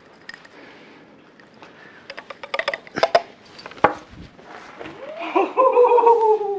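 Clinks and knocks of lab glassware as potassium iodide catalyst is tipped into a tall flask of hydrogen peroxide and soap. About five seconds in, a loud, drawn-out exclamation of amazement, falling in pitch, as the elephant-toothpaste foam erupts out of the flask.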